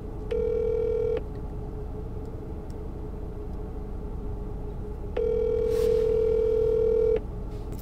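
Ringback tone of an outgoing phone call on a smartphone's speakerphone: a steady ringing tone heard twice, about four seconds apart, the second lasting about two seconds, while the call goes unanswered. A low steady hum runs underneath.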